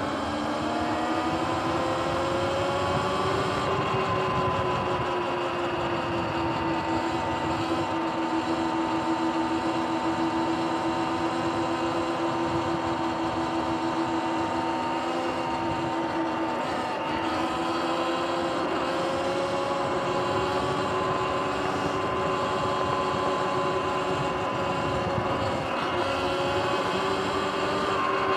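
Sur-Ron electric dirt bike's motor whining as it accelerates, the pitch rising over the first few seconds and then holding steady while cruising. The pitch dips briefly about two-thirds of the way through and climbs again near the end, with a steady rush of road and air noise underneath.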